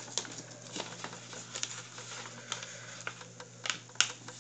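A sheet of paper being folded and creased by hand, with irregular crackles and crinkles, the sharpest near the end, over a steady low hum.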